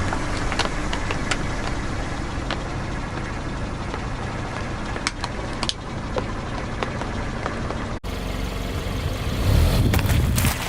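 A car's engine running low and steady, with scattered sharp cracks and crunches as its tyres crush objects. A cut about eight seconds in, then a louder rumble and a cluster of crunching near the end.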